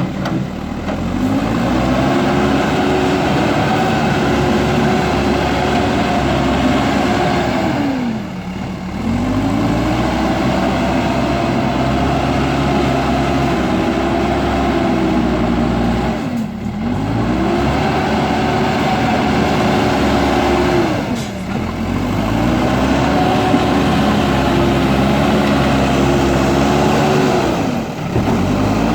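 JCB backhoe loader's diesel engine running steadily at high revs. Its pitch sags briefly and climbs back about every five to eight seconds, five times in all.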